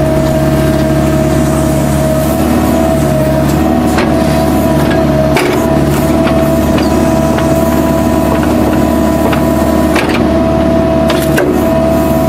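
Kubota U-45 mini excavator running steadily at work, a constant engine drone with a high steady tone over it, broken by several short sharp knocks and cracks.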